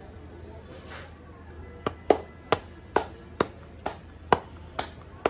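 A barber's hands slapping rhythmically in a tapping massage, about two sharp strikes a second, starting about two seconds in.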